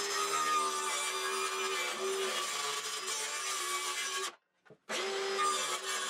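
Cordless circular saw running steadily as its blade cuts through a plywood sheet to cut out a window opening. The sound drops out completely for about half a second about four seconds in, then the saw runs on.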